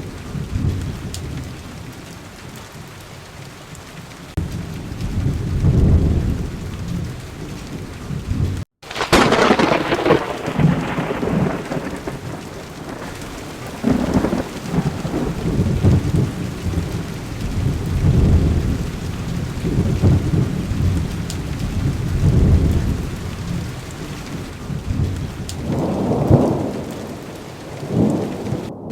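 Heavy rain falling steadily, with thunder rumbling again and again through it. About nine seconds in, a sharp thunderclap cracks and rolls away.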